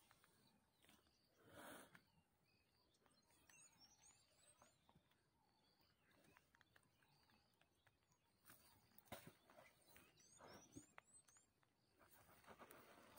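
Near silence: faint outdoor ambience with a few soft rustles and two brief spells of faint high bird chirping.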